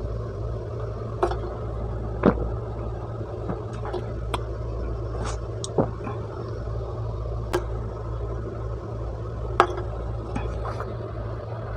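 Aluminium soda can being drunk from and handled: several short, sharp clicks and taps, spread irregularly, over a steady background hum.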